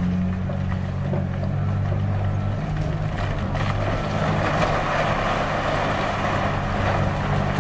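Heavy excavator's diesel engine running steadily, with a rough noise over it that grows louder about four seconds in.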